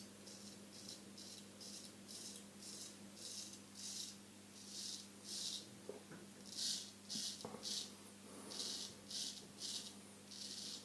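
Solingen H. Geffgen 6/8 straight razor cutting stubble through shave cream lather: a run of short, faint scraping strokes, about one or two a second, over a steady low hum.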